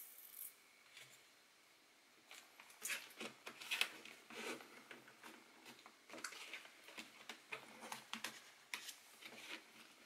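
Fingers working at the plastic bottom cover of a Lenovo ThinkPad A485 laptop: a run of faint, irregular small clicks and scrapes from about two seconds in.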